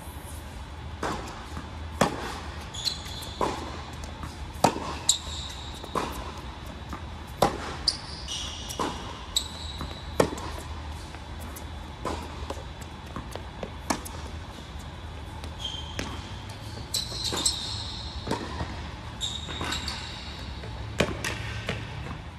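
Tennis rally on an indoor hard court: sharp racket-on-ball hits and ball bounces every second or so, echoing in the hall, with sneakers squeaking in short bursts as the players move.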